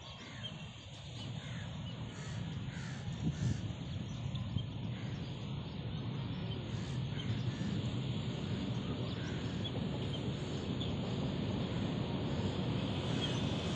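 Pakistan Railways HBU-20 diesel-electric locomotive approaching with a passenger train, its low rumble growing steadily louder, while crows caw.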